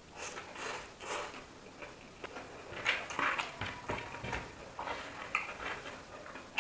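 A person eating: irregular chewing and mouth sounds, with a few light clicks of cutlery or dishes, busiest about three seconds in.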